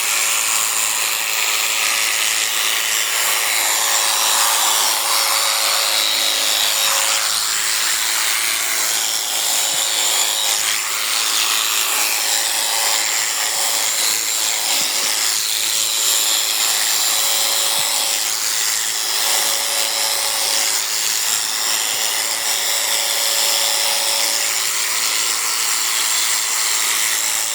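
Electric sheep shears running steadily, the clipper buzzing and rasping as it cuts through a sheep's fleece.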